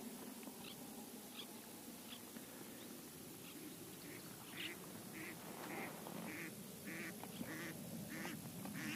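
A run of duck quacks, a little under two a second, starting about four seconds in and growing louder, after a few faint high peeps.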